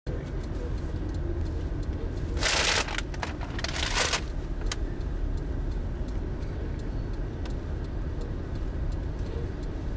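Freight train cars rolling past at a crossing: a steady low rumble of wheels on rail with scattered clicks as wheels pass over rail joints. Two short bursts of hiss come about two and a half and four seconds in.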